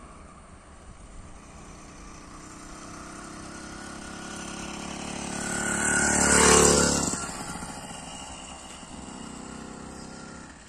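Motorized bicycle's BT80 two-stroke engine approaching, passing close by about six and a half seconds in, and fading away as it rides off.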